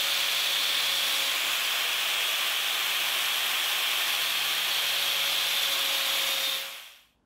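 Angle grinder with an abrasive disc grinding a forged steel nutcracker arm: a steady, loud grinding hiss over the motor's hum, which stops near the end.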